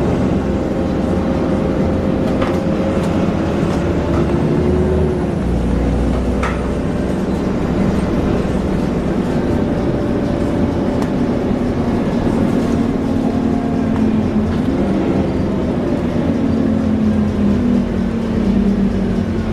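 Alexander Dennis Enviro400 double-decker bus under way, its engine and transmission running steadily with the pitch drifting up and down as road speed changes. A few light rattles.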